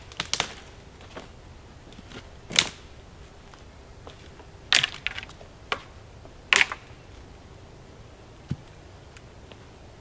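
Dry sticks and branches snapping: about five sharp cracks a second or two apart, the loudest after two or three seconds.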